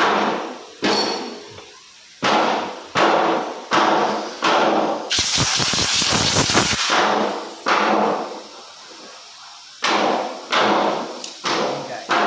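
Hammer blows on the metal of a lorry gearbox being opened up, in runs of several strikes about a second apart, each ringing briefly. Midway there is a burst of hissing noise lasting about two seconds.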